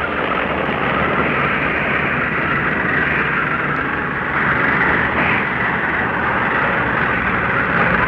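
Archival World War II tank-battle recording: a steady, dense rumble of tanks on the move, with no single shot standing out.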